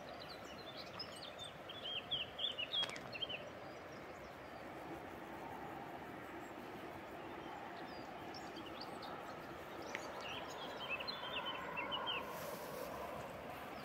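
A bird chirping in two quick runs of short high notes, a few seconds apart, over steady outdoor background noise.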